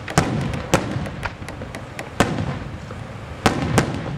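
Aerial firework shells bursting in the sky: a string of sharp bangs, the loudest about a quarter of a second in, just before a second in, a little after two seconds and twice near three and a half seconds in, with smaller cracks and a low rolling echo between them.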